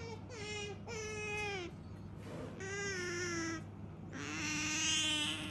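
Domestic cat meowing four times in drawn-out calls, the last one the longest and loudest, near the end.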